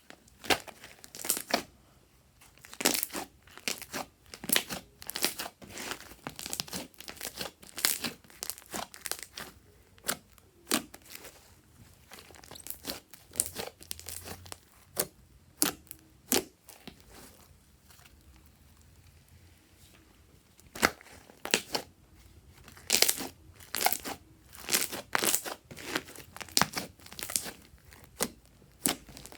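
Fluffy slime being worked by hand, giving irregular runs of sharp sticky crackles and pops, with a quieter spell about halfway through.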